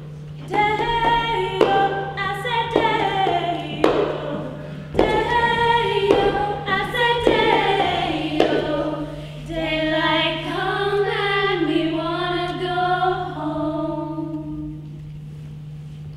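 A small group of women singing a short tune together without instruments, the last phrase held and trailing off near the end. A steady low electrical hum sits underneath.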